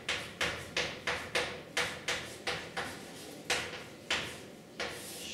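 Chalk writing on a blackboard: a quick run of short chalk strokes, about three a second, with a brief pause near the end before one more stroke.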